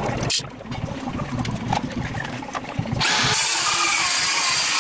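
Handheld cordless drill running steadily for about two seconds, starting about three seconds in. Before it there are light knocks and handling sounds.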